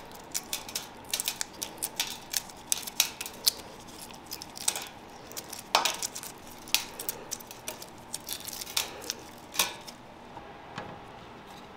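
The shell of a soft-boiled egg crackling as it is peeled by gloved hands: a quick, irregular run of small sharp clicks and crinkles that thins out near the end.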